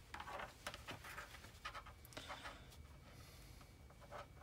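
Faint rustling and a scatter of light clicks from gloved hands handling wire.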